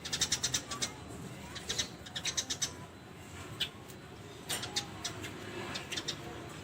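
Birds calling: several short runs of rapid, sharp, high chirps, about ten to a second, coming in bursts with pauses between them.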